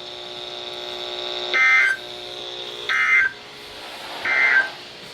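NOAA Weather Radio end-of-message code: three short, harsh bursts of SAME digital data tones, about a second and a half apart, marking the end of a severe thunderstorm warning. They come over a weather radio's speaker, with a faint steady hum that stops at the first burst.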